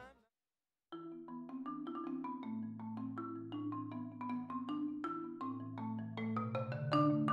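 Background music: a light mallet-percussion tune of quick struck notes over held low notes, starting about a second in after a brief silence.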